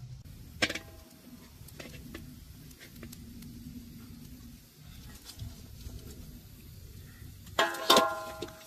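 Metal cookware clinking, each strike leaving a short ringing tone: one clink about half a second in, a fainter one near two seconds, and a quick run of louder clinks near the end.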